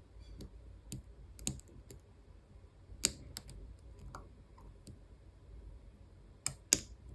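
Scattered small metallic clicks of a lock pick and tension wrench working in an EVVA ICS pin-and-slider cylinder as the tension is eased, with a louder pair of clicks near the end.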